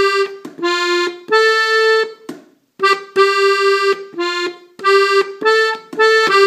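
Button accordion in F playing a slow melody one note at a time on the treble buttons. The notes are separate and held, with short breaks between them and a pause of about half a second midway.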